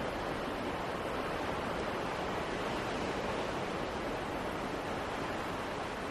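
Steady wind noise, an even rushing hiss with no distinct events.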